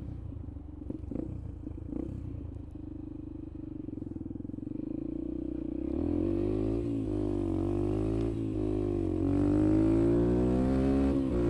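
Yamaha TT-R125 dirt bike's single-cylinder four-stroke engine running at a low steady idle at first. About six seconds in it revs up as the bike pulls away: the pitch climbs, drops back twice with gear changes, then climbs again, with rising wind noise.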